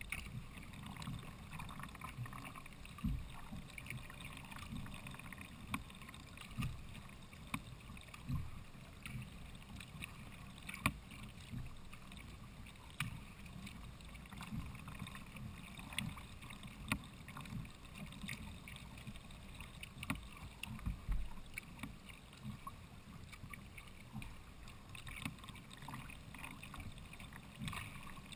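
Sea kayak being paddled on calm water: soft splashes and drips from the paddle blades, with irregular low thumps and a few sharp knocks.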